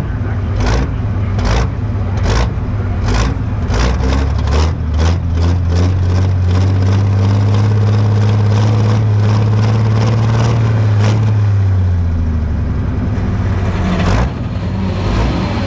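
Pro Stock pulling tractor's turbo-diesel engine: a run of sharp, evenly spaced pulses that come quicker and quicker, then a steady low drone from about five seconds in that holds and falls away near twelve seconds.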